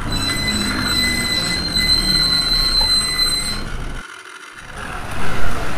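Battery-powered toys running on a hard floor: a motor drone under a steady high-pitched electronic whine. The whine stops about three and a half seconds in, the sound drops out briefly, then comes back with a short loud burst near the end.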